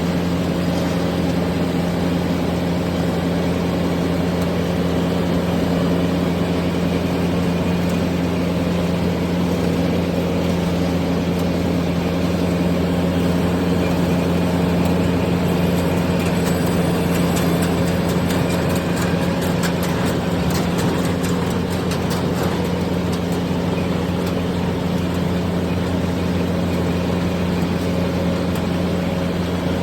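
Yanmar 820 rice combine harvester running steadily under load while cutting lodged rice, a constant low engine hum, with faint ticking over the top about halfway through.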